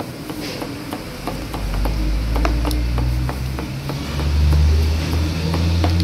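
Metal spoon tossing and mixing food in a plastic bowl, with light, irregular clicks and scrapes, over a low rumble that swells in the second half.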